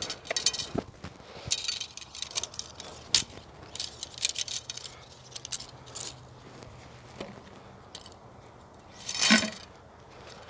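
Arrows being pulled out of an archery target and handled, clinking together: a run of irregular scraping, crunching clicks, with one louder crunch about nine seconds in.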